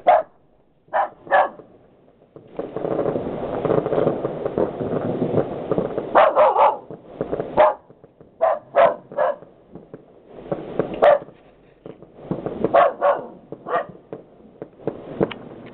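A dog barking in short, sharp barks, singly and in quick runs of two or three, while fireworks crackle and rumble in the distance in long stretches between the barks. The dog is barking at the New Year's fireworks.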